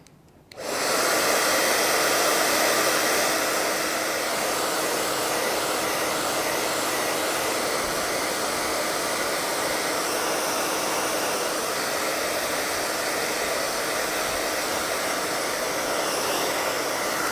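Handheld hair dryer switched on about half a second in, then blowing steadily to dry wet paint: a continuous rush of air with a faint motor hum, a little louder for the first few seconds.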